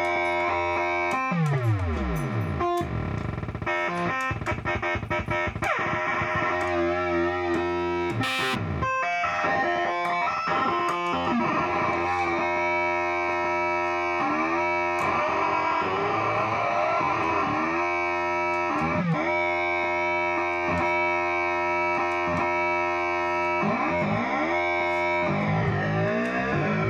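Dense, effects-laden instrumental drone: several held tones stacked into a chord, with pitch glides sweeping downward near the start and rising again near the end, and a brief noisy crackle about eight seconds in.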